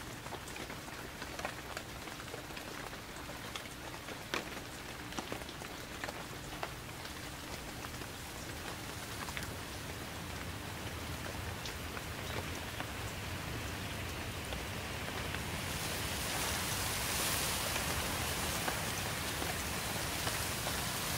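Steady rain falling, with single drops ticking sharply close by; about three-quarters of the way through the rain grows heavier and louder.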